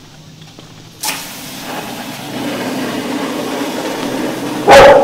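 A steady machine hum with hiss starts suddenly about a second in and runs on. Near the end a dog barks once, loudly.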